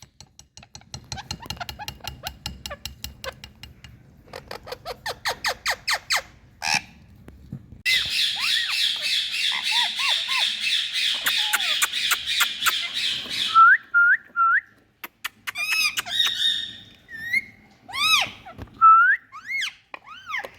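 Indian ringneck parrot calling: a quick series of clicking pulses for several seconds, then about five seconds of dense, rapid chattering, then a handful of short separate calls that rise and fall in pitch.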